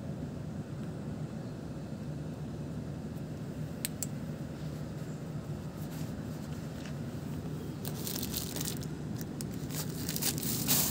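A thin plastic bag crinkling and rustling, starting about eight seconds in and running to the end, over a steady low hum. A single click comes about four seconds in.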